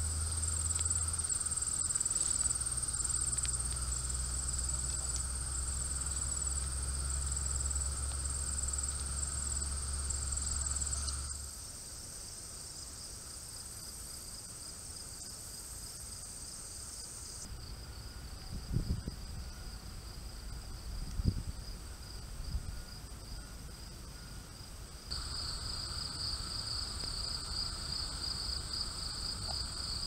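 Meadow insects, crickets and the like, chirring steadily in high, continuous trills, one of them pulsing rapidly. A low steady hum lies beneath for roughly the first third, and there are a few soft low bumps past the middle.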